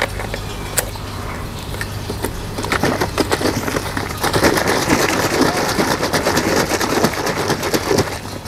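Milky liquid sloshing inside a capped plastic milk jug shaken hard by hand to mix it, a fast, busy churning that grows louder about three seconds in. A sharp click comes right at the start.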